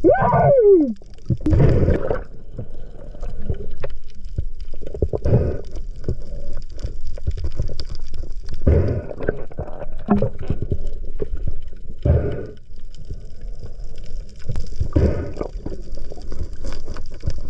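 Underwater water noise around the camera: a constant low churn and gurgle, with a loud rushing surge about every three and a half seconds. There is a brief falling squeal right at the start.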